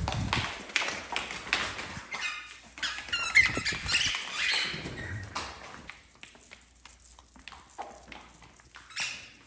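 A dog's booted paws tapping and clicking on a hardwood floor, with a burst of high-pitched squeaks about two to four seconds in. The taps grow fainter toward the end.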